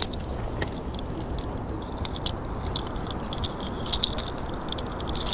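Metal chain fish stringer rattling, its snap clips clinking in scattered light clicks as it is handled to clip a caught trout on.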